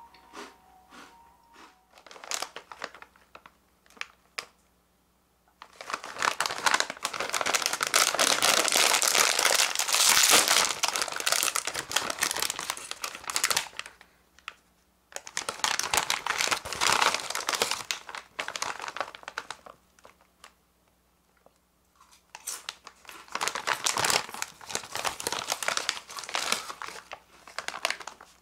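A foil-lined bag of WasaBeef potato chips crinkling loudly as it is handled, opened and pulled wide, in three long stretches starting about six seconds in. A few faint ticks come before it.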